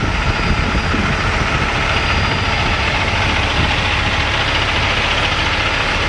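Peterbilt semi-truck's diesel engine idling steadily while warming up.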